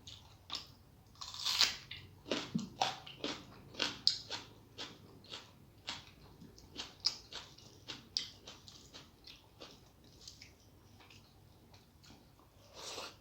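A person chewing food close to the microphone: a run of quick, wet mouth clicks, about two or three a second, with a longer, louder sound about a second and a half in and another at the end.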